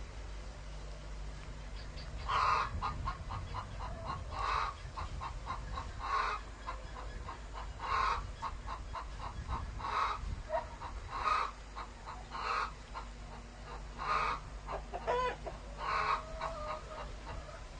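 Chicken clucking: from about two seconds in, a louder squawk every second and a half to two seconds, with quick runs of short clucks in between.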